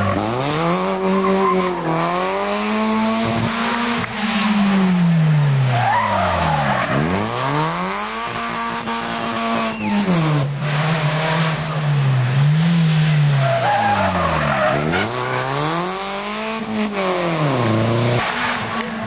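Rally car engine at high revs, its pitch climbing and falling several times as the car accelerates and lifts off, with tyre noise.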